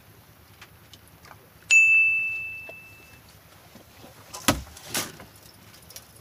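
A single clear bell-like ding about two seconds in, fading away over a second and a half. Then, around four and a half seconds, two sharp knocks as a fishing rod is grabbed out of its holder on the raft's rail.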